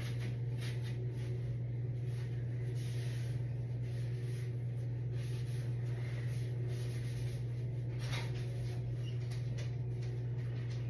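Soft, irregular rubbing strokes of a cleaning wipe over bathroom surfaces, over a steady low hum.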